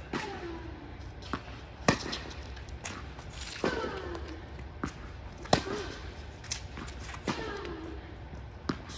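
Tennis rally: a tennis ball struck by rackets and bouncing on a hard court. Loud sharp hits come about every three and a half seconds from the near player, with fainter hits and bounces between them.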